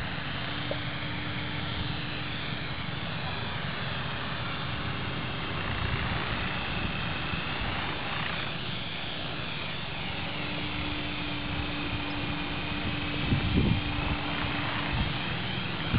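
Align T-Rex 450-class electric RC helicopter hovering low, loaded with about 1300 g of camera and FPV gear: steady rotor whoosh and motor whine, its high pitch sweeping up and down as the helicopter moves about.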